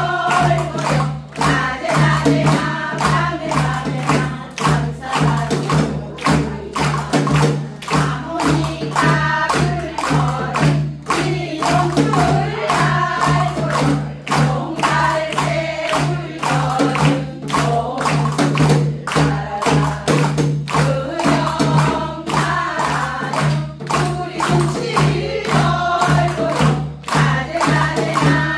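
A group of women singing a Jeju haenyeo folk song together in unison, over a steady, driving percussive beat.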